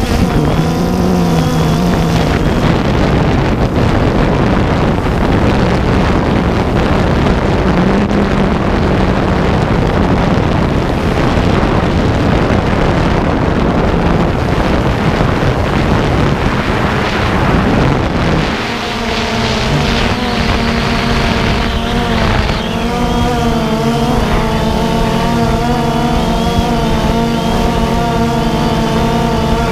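DJI Phantom 2 quadcopter's motors and propellers buzzing steadily in flight, heard up close from the onboard camera with wind noise on the microphone. About two-thirds of the way through, a stack of pitched motor tones comes up and wavers as the motors change speed.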